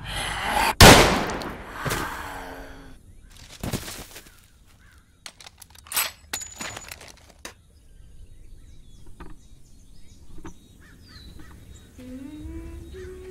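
A single rifle shot about a second in, with a long echoing tail, followed by a few faint clicks. Near the end a low hummed tune begins.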